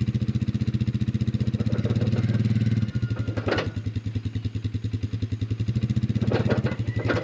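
Four-wheeler's engine idling steadily, a fast even putter. There is a short sharp clank about halfway through and a couple more near the end.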